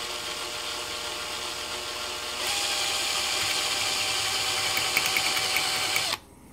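Power drill with a small bit drilling out the solder-clogged lead hole in an alternator brush holder. The motor's whine gets louder about two and a half seconds in and stops suddenly near the end.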